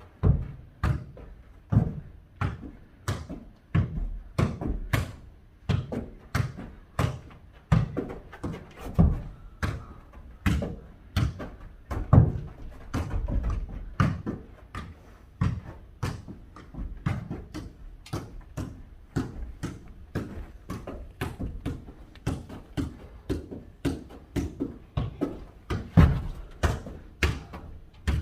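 A football being kicked back and forth and bouncing on a hard floor during a foot-volleyball rally: a steady string of sharp thuds, about one to two a second.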